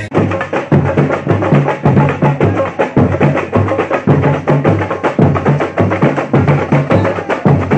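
Music with a fast, steady percussive beat over a bass line.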